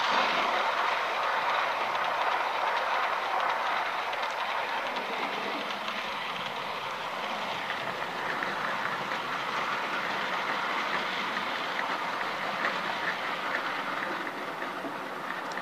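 00 gauge model trains running on the layout's track: a steady rattle of small metal wheels on the rails with rapid clicking, a little louder at the start.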